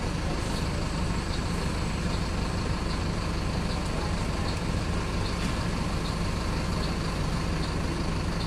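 Marcopolo Torino city bus running along, heard from inside the cabin: a steady low engine drone with road noise. A faint high tick repeats a little under once a second.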